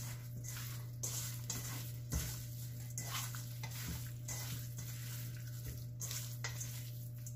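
Hands squishing and turning raw chicken breast coated in oil and breadcrumbs in a stainless steel bowl: irregular wet squelches and gritty scrapes against the metal. A steady low hum runs underneath.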